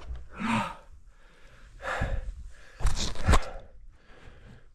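A mountain biker's hard, gasping breaths, with a short grunt about half a second in. Around three seconds in comes a cluster of loud, sharp knocks.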